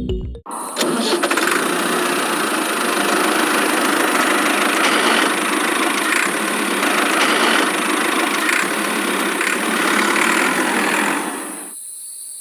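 A motor running steadily, starting about half a second in and dropping away near the end.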